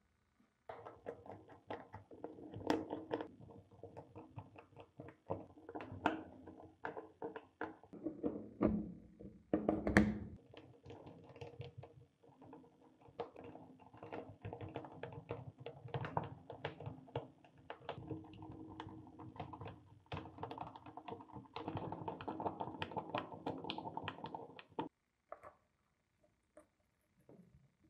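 Hands working on a vintage Black & Decker drill's metal gearbox: repeated small clicks, taps and knocks of metal parts, and a screwdriver turning the screws in the housing. There is a louder knock about ten seconds in.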